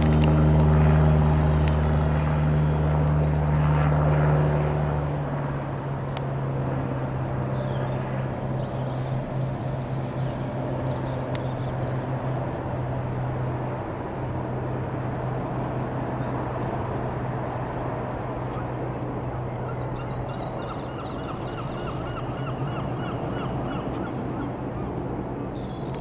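The single piston engine of a Cessna 172 Skyhawk droning overhead. It is loudest for the first five seconds, then settles into a steady, quieter hum. Small birds chirp faintly, and a quick run of repeated calls comes near the end.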